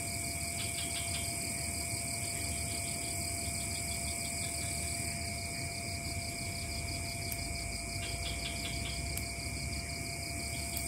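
Chorus of night insects, crickets trilling steadily at several pitches, one of them in rapid even pulses, over a low background rumble.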